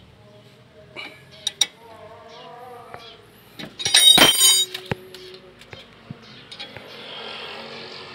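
Metal tools and brake parts being handled at a car's front wheel hub: a few light clinks, then one loud ringing metallic clank about four seconds in.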